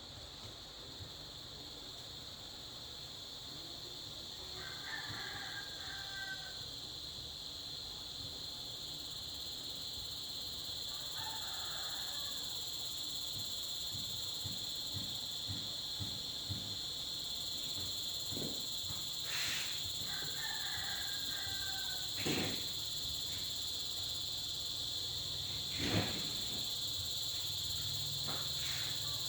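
Steady high-pitched chirring of insects such as crickets, with a few sharp clicks in the second half.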